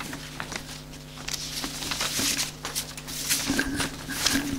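Sheets of paper rustling and crackling as they are handled, with a steady low hum underneath.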